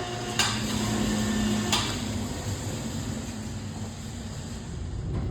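Two sharp metal knocks about a second and a half apart, over a steady low machine hum, as steel bar stock is handled at a manual lathe.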